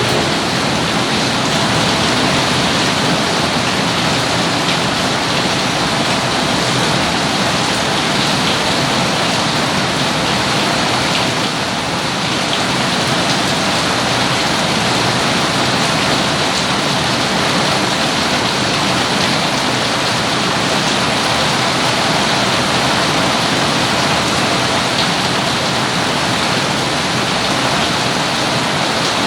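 Rain falling steadily, an even hiss that keeps up without let-up.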